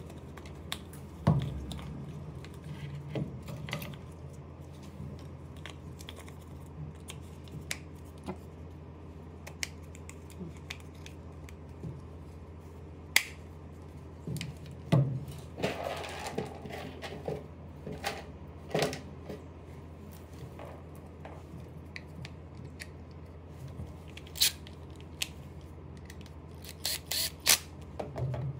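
Small clicks, taps and knocks of plastic and metal parts as a hedge trimmer's brushless motor assembly is handled and turned over by hand, with a cluster of sharp clicks near the end, over a steady low hum.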